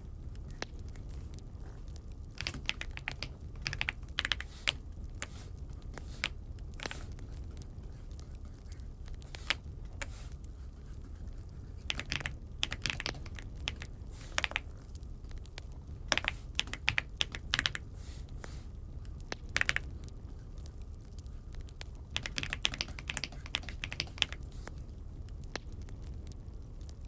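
Typing on an Aula F75 mechanical keyboard: keystrokes come in irregular short runs with pauses between them, over a steady low hum.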